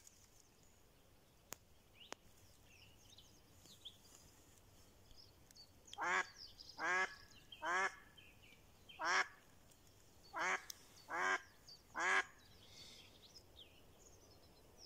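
Live decoy hen duck quacking on the water: seven loud quacks starting about six seconds in, in groups of three, one and three. This is the hen calling that is meant to draw in drakes.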